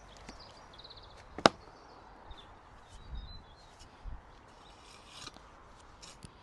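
Digging in garden soil: one sharp strike of the digging tool about a second and a half in, then a few softer, duller thuds.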